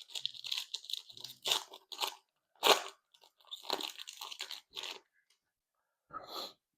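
Foil trading-card pack wrapper being torn open and crinkled: a run of irregular crackles for about five seconds, then one more short crackle near the end.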